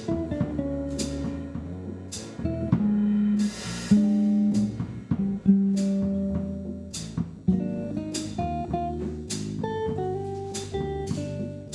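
Jazz guitar trio playing: an archtop jazz guitar picks single-note lines and chords over an electric bass guitar and a drum kit, with a cymbal struck on a steady beat and one longer cymbal wash about three and a half seconds in.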